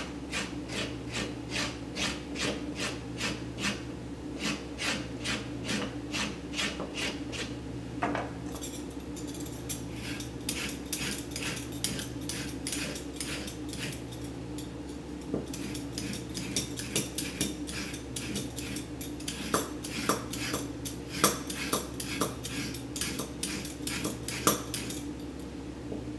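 Carrot skin being scraped off with the back of a kitchen knife blade, in even rasping strokes about three a second. From about eight seconds in the strokes come faster and less even.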